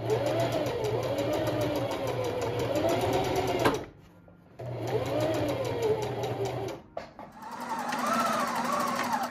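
Electric sewing machine running in three bursts with a fast, even stitch rhythm, zigzag-stitching coiled cotton clothesline rope. The motor whine rises and falls in pitch as the speed changes, and the machine stops briefly about four and seven seconds in.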